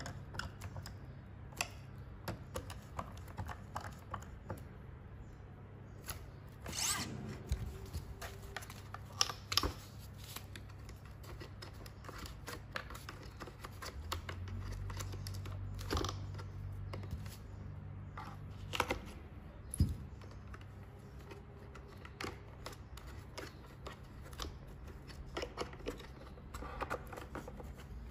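Scattered small clicks, taps and knocks of hand assembly work: a hand screwdriver turning small M2.6×8 screws into a plastic servo, then the plastic servo and its lead being handled and pressed into a foam tail fin.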